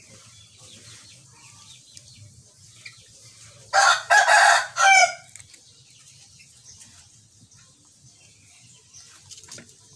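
A rooster crowing once, loudly, about four seconds in, for about a second and a half, ending on a falling note.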